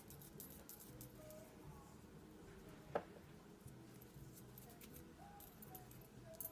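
Near silence: faint room tone, with one short click about three seconds in.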